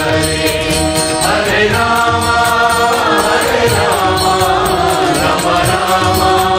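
Devotional mantra chant sung in long held lines over music with a steady percussion beat.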